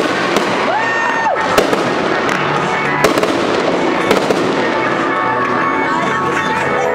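Fireworks display: aerial shells bursting with sharp bangs over a continuous crackle of glittering stars, with a short whistling tone about a second in.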